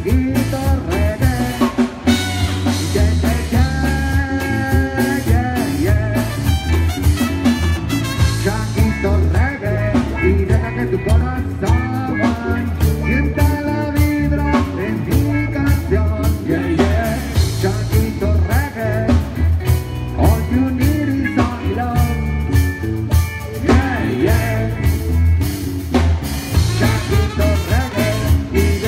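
Live band playing an instrumental stretch of a reggae song on electric guitars, bass and drum kit, with a steady beat and melody lines that come and go.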